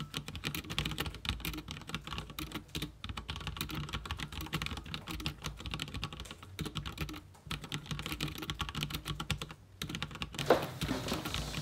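Fast typing on a computer keyboard: a dense run of key clicks, broken by brief pauses about three, seven and ten seconds in.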